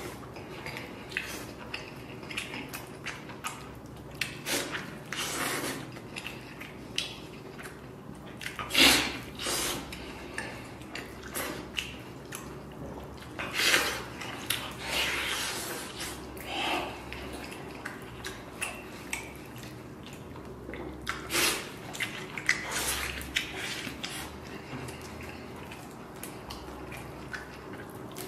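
A person eating a stewed leg of lamb by hand: wet chewing, lip smacking and the tearing of soft meat off the bone. The sounds come as irregular short smacks, the loudest about 9 and 14 seconds in.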